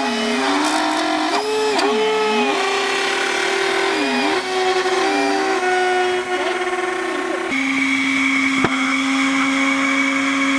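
Electric ducted fans of a radio-controlled model hovercraft whining, their pitch repeatedly dipping and rising again as the throttles are worked. About three-quarters of the way through the whine turns steady, with a single click shortly after.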